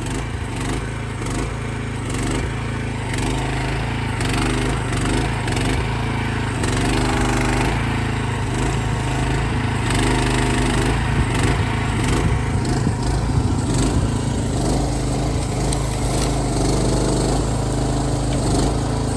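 Small engine of a micro excavator running, with a wavering tone that rises and falls again and again as the hydraulics work the arm under load. It grows a little louder a few seconds in.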